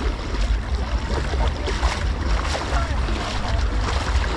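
Wind buffeting the microphone with an uneven low rumble, over water sloshing and splashing around people wading through shallow sea, with faint voices in the background.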